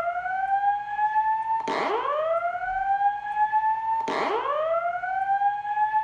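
Simplex 4903-9194 speaker strobe sounding the whoop evacuation tone of a voice-evac alarm cycle. Each whoop sweeps up in pitch, levels off and cuts off sharply before the next begins, repeating about every two and a half seconds.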